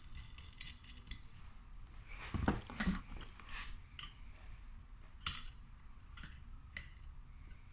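Scattered small metallic clicks and clinks of nuts and a spanner being handled as two nuts are threaded onto a boiling tap's new stabilising leg to lock against each other. Two sharper clinks stand out, about two and a half seconds and five seconds in.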